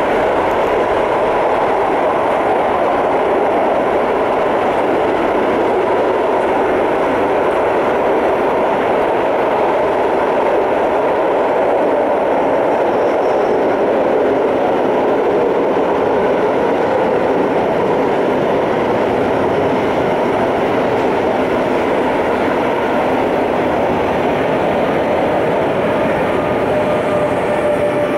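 Long intermodal freight train rolling past, with a steady, loud rumble of wheels on rail. It is pulled by two electric locomotives, a Siemens ES64F4 and a Vectron, and its wagons carry lorry semi-trailers. A thin steady whine sounds over it at the start and again near the end.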